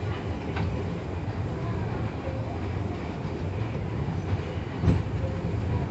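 Kintetsu Nishi-Shigi Cable funicular car running downhill on its rails: a steady low rumble with a few faint clicks, and one sharp knock near the end.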